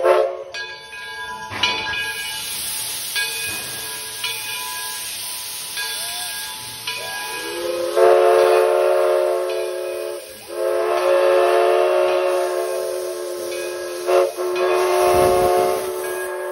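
Steam locomotive hissing steam, then about halfway through its chime whistle sounds a chord in three long blasts with short breaks between them. The locomotive is the Edison No. 1, a 4-4-0.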